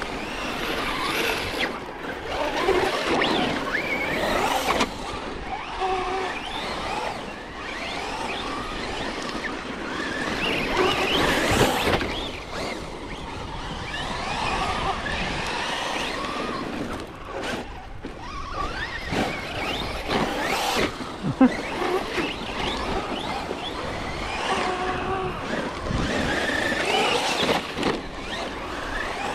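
Electric motors of radio-controlled trucks whining, their pitch rising and falling again and again as the trucks speed up and slow down, several at once, over a steady noisy background.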